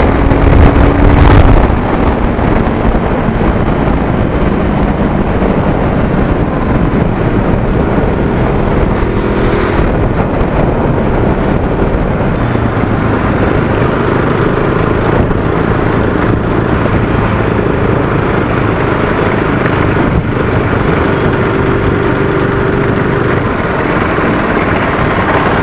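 Motorcycle riding in traffic: the engine runs under a steady rush of wind and road noise, its note falling over the first few seconds as the bike slows.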